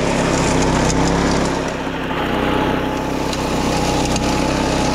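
Small single-cylinder petrol engine of a self-propelled walk-behind mower running steadily while its blades cut through tall grass and bamboo shoots, the level dipping briefly about two seconds in.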